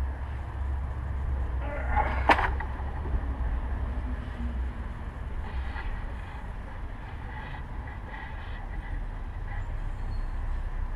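Engine parts and tools handled under a pickup's hood: one sharp clink about two seconds in, then faint scattered clatter, over a steady low background rumble.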